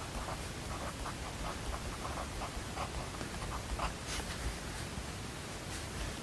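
Writing on paper in short, irregular scratchy strokes over a steady white-noise hiss, with one longer, brighter scratch a little after four seconds in.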